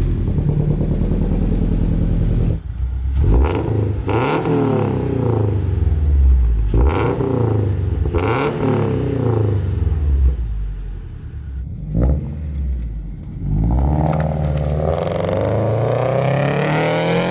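2022 Toyota GR86's 2.4-litre flat-four running through an aftermarket 3-inch dual-exit exhaust with a catted, resonated front pipe. It is revved in several short blips, then held in one longer rising rev near the end.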